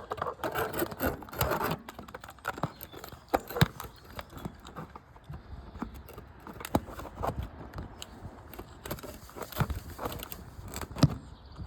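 Irregular clicks, knocks and scrapes of a camera being handled and set in place, with a few sharper knocks about three and a half and eleven seconds in.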